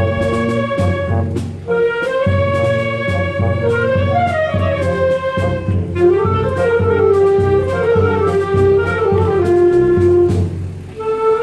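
Wind band of clarinets, saxophones and brass playing a piece in sustained phrases, with a brief break between phrases about a second and a half in and another near the end.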